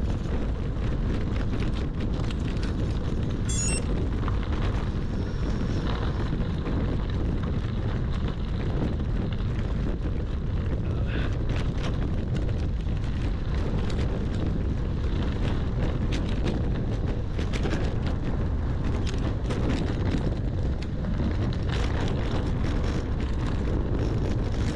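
Wind buffeting the microphone of a camera on a bicycle riding a rutted dirt road, a steady low rumble. Small clicks and rattles from the tyres and bike are scattered through it.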